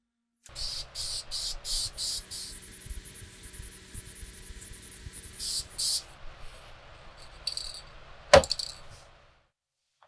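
Rapid hand scrubbing strokes on a small rusty metal part, about three a second, fading out after about six seconds. A single sharp clink follows near the end.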